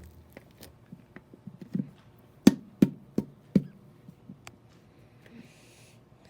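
Nearly empty plastic lotion bottle being knocked to get the last of the lotion out: light taps, then four sharper knocks in quick succession about two and a half seconds in.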